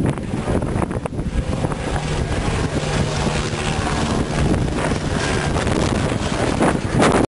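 Firefighting helicopter with a slung water bucket flying past close by, its engine and rotor running steadily under heavy wind buffeting on the microphone.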